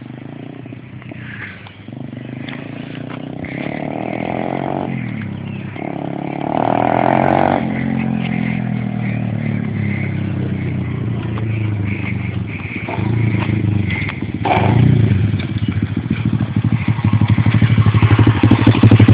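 Small pit bike's newly fitted engine. It revs up and drops back several times as the bike rides up toward the camera, getting louder as it comes. It ends close by, running at low revs with an even pulse.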